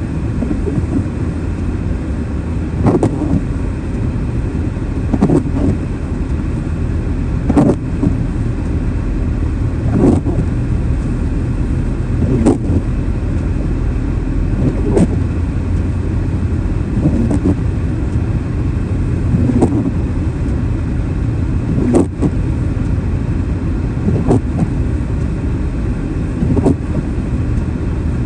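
Steady low road and engine rumble of a car driving in snow, with a short knock repeating evenly about every two and a half seconds.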